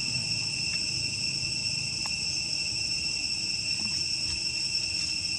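Insects shrilling in a steady, high-pitched drone, over a low background rumble.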